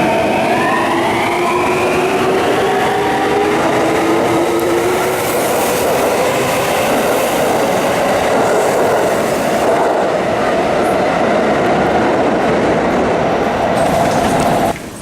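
Karasuma Line subway train pulling out: the electric traction motors whine in several tones that rise in pitch over the first couple of seconds, then give way to loud, steady wheel and running noise. The noise cuts off abruptly near the end.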